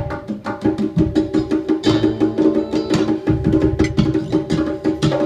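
Live band music led by bongos played in quick, even strokes over a steady, held low note.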